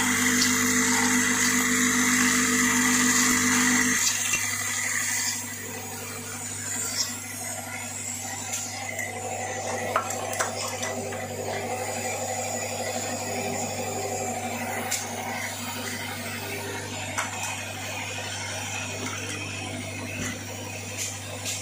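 Electromagnetic vibratory bowl feeder and linear feeder running with a steady buzzing hum, small metal parts rattling along the track with occasional sharp clicks. A louder tone in the machine's hum cuts off about four seconds in, and the lower hum carries on.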